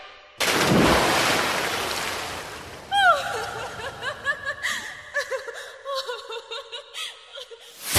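Heavy rain pouring onto a road, a loud rushing hiss that starts suddenly and fades over a couple of seconds. It is followed by a run of short pitched sounds that rise and fall.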